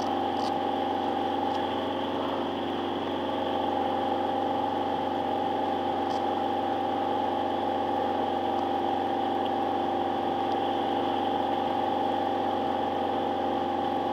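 A diesel engine of a river ferry running steadily: an even, unchanging drone with a hum of several steady tones.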